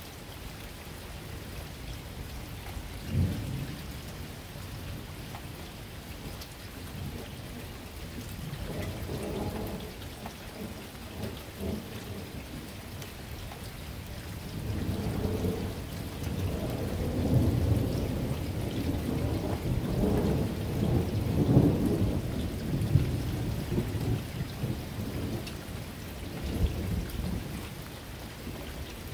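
Steady rain with rolling thunder: a short rumble about three seconds in, then a long rumble that builds through the middle, peaks and fades away near the end.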